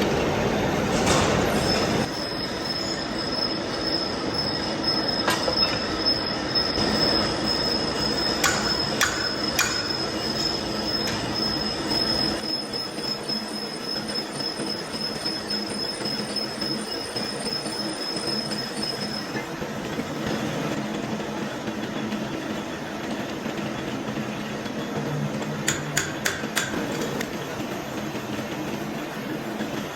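Heavy workshop lathe turning a large steel shaft: steady machine noise with a thin high-pitched squeal from the cut for the first two-thirds or so, and a few sharp metallic clicks.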